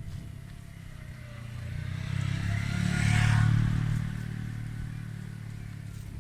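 A motor vehicle's engine passing by, a low hum that grows louder to a peak about halfway through and then fades away.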